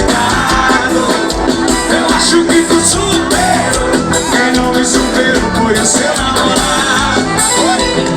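Live forró music played loud, with singing over a steady drum beat.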